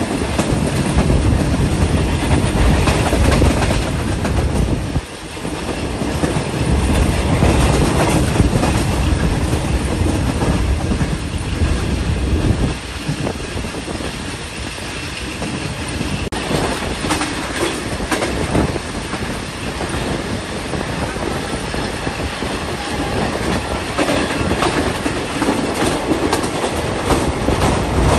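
Moving passenger train: steady running noise, with the wheels clacking over rail joints. The noise drops sharply for a moment about five seconds in, then picks up again.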